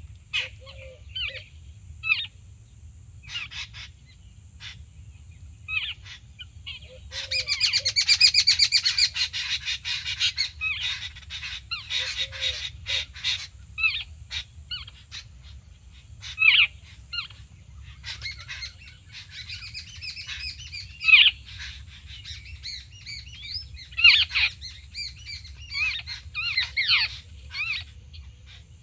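A flock of babblers calling with harsh, chattering calls. Single calls come scattered at first, then a dense burst of chatter about 7 seconds in, and frequent calls again from about 18 seconds on.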